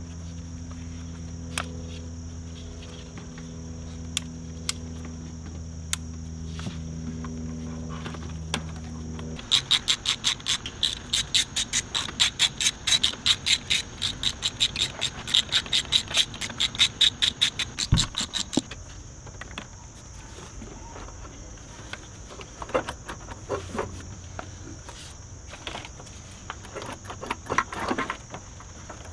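Hand ratchet clicking in a fast, even run, about four or five clicks a second for roughly nine seconds, while fasteners on a BMW M54 intake manifold are worked loose. Before it there is a steady low hum, and after it come scattered knocks and clicks of tools on the engine.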